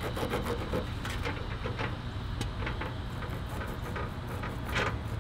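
Hands working a raw whole flounder in a metal tray, making irregular small wet clicks and smacks over a steady low hum.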